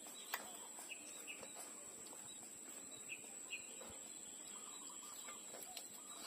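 Puppies suckling from their mother: faint sucking and smacking clicks, with a few short high chirps and a steady faint high-pitched whine.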